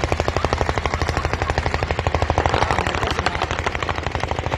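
Sustained automatic gunfire: one long unbroken burst at about ten shots a second.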